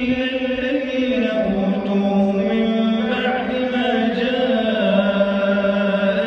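A man reciting the Quran in a slow, melodic chant, drawing out long held notes that glide up and down in pitch.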